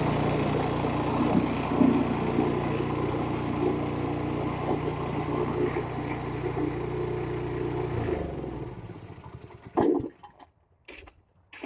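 Snowblower's small gasoline engine running steadily, then shut off about eight seconds in and winding down to a stop. A few short crunches follow near the end.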